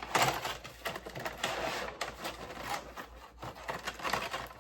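Rustling packaging and light clicks and knocks as a boxed figurine is handled, with a louder rustle right at the start and another about a second and a half in.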